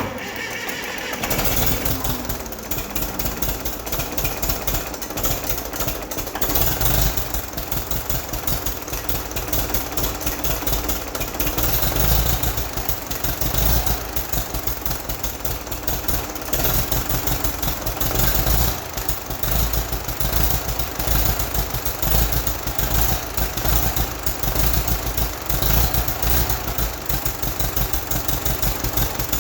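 1959 Case 800 diesel engine being cranked over on its starter while it is being primed, with a fast, even rhythm that starts abruptly and runs on steadily.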